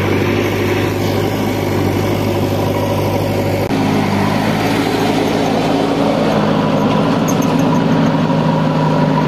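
JCB 3DX backhoe loader's diesel engine running steadily close by. Its note shifts abruptly a few seconds in.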